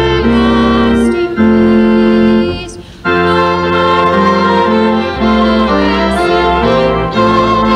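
Organ playing slow, sustained chords, breaking off briefly about three seconds in before resuming.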